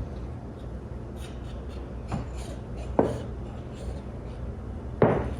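Window-screen spline roller pressed and rubbed along a galvanized steel sheet to roll a bead into it, with sharp knocks of the metal about three seconds and five seconds in.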